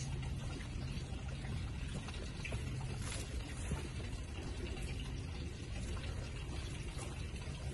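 Steady outdoor background noise: an even hiss over a low hum, with a few faint clicks about three seconds in.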